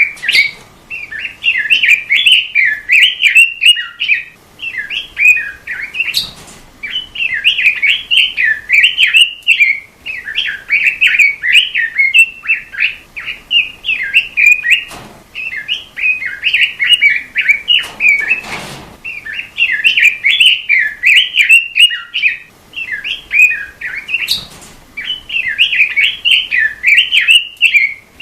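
A robin songbird singing, as kept in Indonesian songbird hobbying, in long runs of rapid chattering, warbled notes, each run lasting a second or two with short breaks between.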